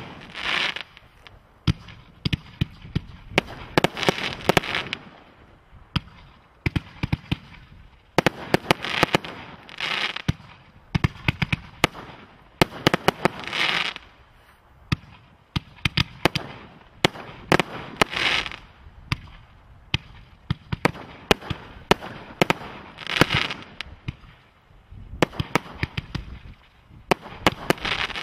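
A consumer firework barrage cake ('21st Century Barrage') firing continuously: sharp bangs and dense crackling, a fresh shot about every one to two seconds.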